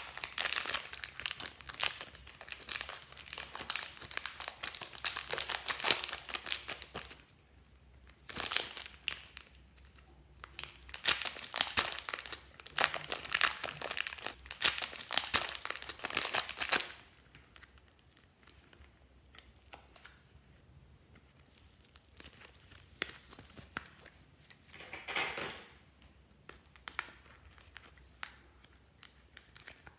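Thin clear plastic zip bags crinkling and crackling as they are pulled and peeled off lumps of soft clay, in two long busy stretches. About halfway through it turns much quieter, with only a few short rustles of plastic.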